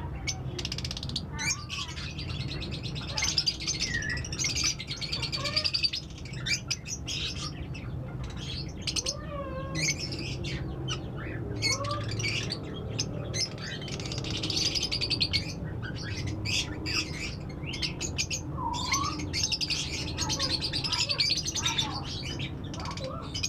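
Several lutino Fischer's lovebirds chattering: repeated bouts of rapid, high-pitched twittering with short chirps in between.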